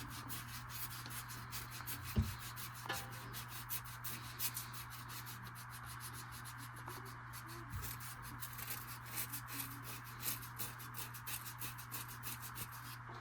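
Sandpaper rubbed quickly back and forth over the metal rod of a furnace flame sensor, a rapid run of light scratchy strokes that stops near the end. The rod is being cleaned of buildup, the usual cure for a furnace that shuts off after a few minutes of running.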